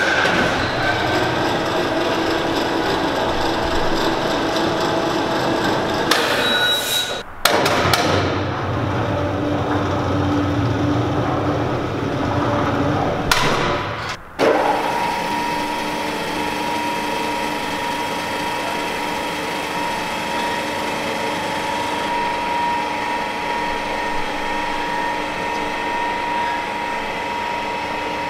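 Electric overhead crane's motors running, a steady whine made of several held tones. The sound drops out suddenly and restarts twice, about a third and halfway through.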